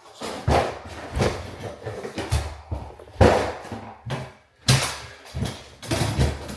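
Irregular knocks and clatter from objects being handled and set down, about seven sharp knocks with rustling in between.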